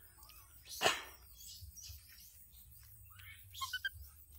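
A single sharp crackle about a second in, then a few short high chirps near the end.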